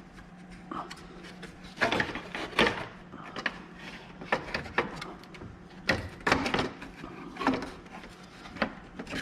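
Plastic radiator fan assembly being worked down into place: irregular clicks, knocks and scraping of plastic against the radiator and nearby parts, in clusters about two seconds in and again around six seconds in.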